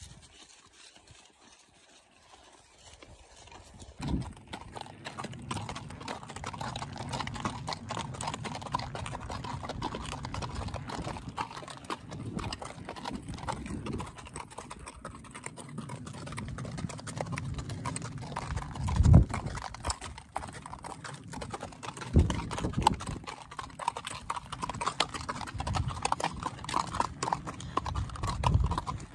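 Hooves of two horses walking together, a ridden white horse and a black horse led alongside, clip-clopping on a dirt track and then on gravel. The hoofbeats are faint at first and become a steady clatter from about four seconds in, with one loud thump about two-thirds of the way through.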